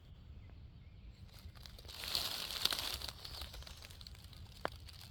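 A hiker's footsteps crunching and crackling on a dry woodland trail, with a steady low rumble underneath.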